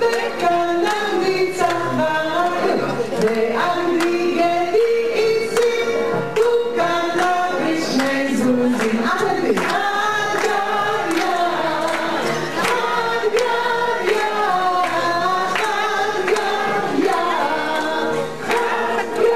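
Many voices singing a song together in Hebrew, with a steady beat under the singing.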